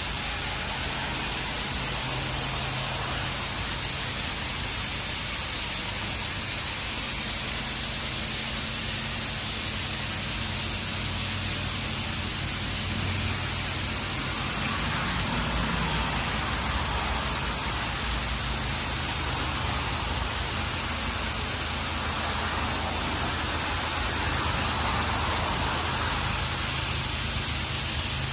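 High-pressure water jets of a D&S IQ 2.0 touchless car wash spraying onto a car: a steady, loud hiss over a low pump hum, swelling twice as the spray passes closer.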